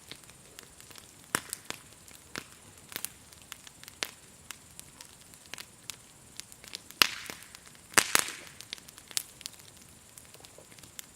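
Wood campfire crackling: irregular sharp pops, with two louder pops about seven and eight seconds in, each trailing off briefly.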